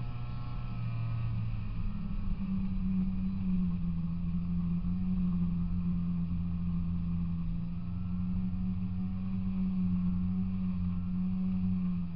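Polaris Indy 340 snowmobile's two-stroke engine running under way. The engine note wavers in the first couple of seconds, then holds steady.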